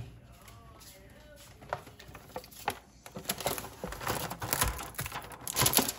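Plastic food packaging crinkling and rustling as groceries are handled and set down on a wooden cutting board. A few sharp clicks start about two seconds in, and the crinkling grows denser in the second half.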